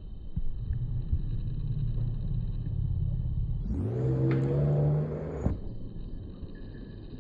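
A motor vehicle engine rumbling, then revving up with a rising pitch nearly four seconds in, before cutting off suddenly about a second and a half later.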